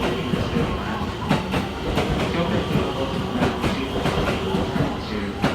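JR West 223 series electric train pulling out and running past, with a steady rumble and irregular clacks as its wheels cross rail joints and points.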